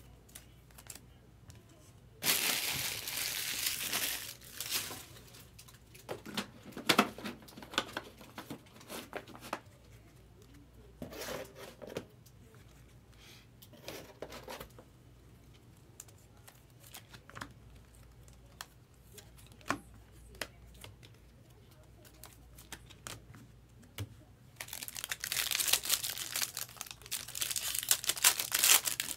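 Foil wrapper of a Bowman Draft jumbo trading-card pack being crinkled and torn open. It comes in two bouts, one about two seconds in and a longer one over the last four seconds, with light rustles and clicks in between.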